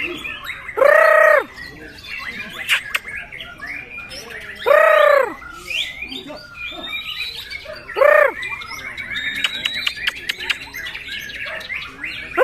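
Murai songbird singing: continuous high twittering and chirps, broken by three loud, arching calls, about a second in, near the middle, and about eight seconds in.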